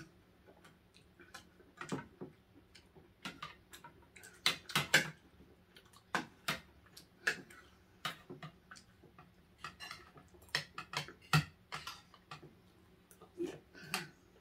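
Scattered clicks and clatter of utensils and food containers being handled during a meal, loudest about five seconds in and again past eleven.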